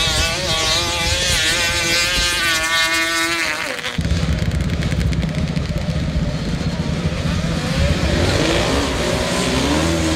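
Drag-racing engines at full throttle down a dirt strip: one engine climbs steadily in pitch for about three and a half seconds, then the sound changes abruptly to a heavy low rumble, and near the end another engine revs up, rising in pitch.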